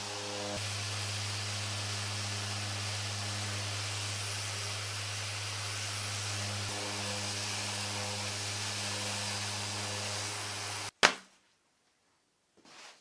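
Mirka random orbital sander running steadily on plywood, a motor hum under a broad sanding hiss. About eleven seconds in it stops abruptly and a single loud, sharp click follows, then it is nearly silent.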